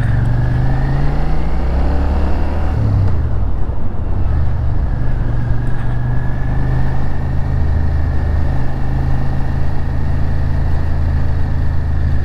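Suzuki Gladius 645 cc V-twin motorcycle engine heard from the rider's seat under way in town: revs climb pulling away, dip briefly about three seconds in at a gear change, then hold steady at cruising speed over wind and road noise.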